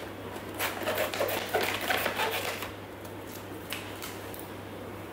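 Scissors snipping open a plastic food packet, with the packet crinkling and rustling in a quick run of small clicks over the first couple of seconds and a single tap near the end. A steady low hum runs underneath.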